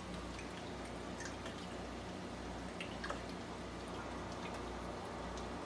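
Aquarium water trickling and bubbling at the tank surface, with a few faint drips, over a steady low hum.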